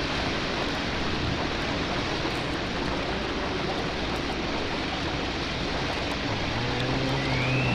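Steady rushing hiss, like rain, from a Halloween graveyard sound-effects record. Near the end, low droning tones and a short rising, whistle-like glide come in.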